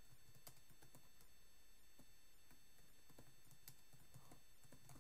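Near silence: faint room hiss with scattered soft clicks of typing on a computer keyboard.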